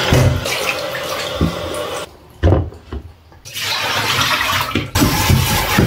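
Kitchen tap running and splashing into a plastic bowl in a stainless steel sink while apples are washed by hand. The water noise drops out for about a second and a half about two seconds in, then comes back, with a few low knocks along the way.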